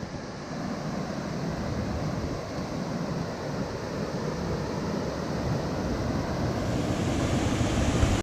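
Steady rush of fast-flowing mountain-stream water, cutting off suddenly at the end.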